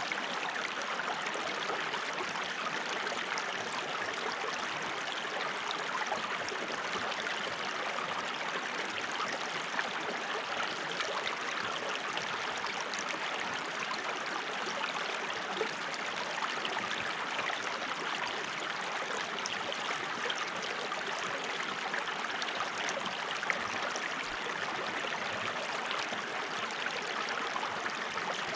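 Running water flowing steadily: an even rush with many small splashes through it.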